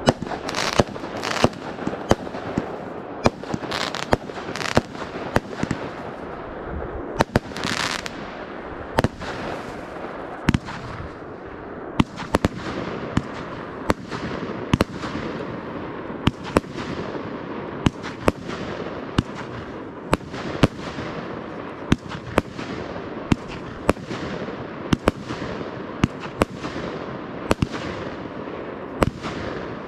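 Fireworks display: a continuous run of sharp bangs, about one a second, each trailing off in a fading rumble, with bursts of hissing during the first eight seconds or so.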